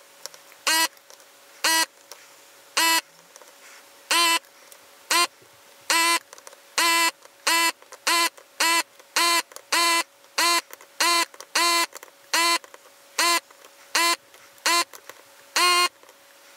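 Hakko FR-300 desoldering gun's vacuum pump running in short bursts, one for each header pin as the trigger is pulled, about twenty in all and coming faster through the middle. The footage is sped up 4.7 times, so each burst is a brief, high-pitched buzz.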